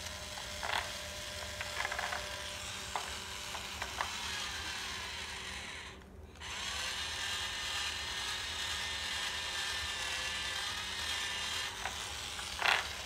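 Battery-powered toy drill whirring, with a few light clicks in the first few seconds. It stops briefly about halfway through, then runs steadily again.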